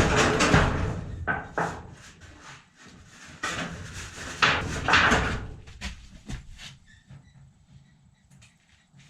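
Corrugated tin sheet being handled and lifted into place, knocking and rattling in loud bursts that die down after about seven seconds.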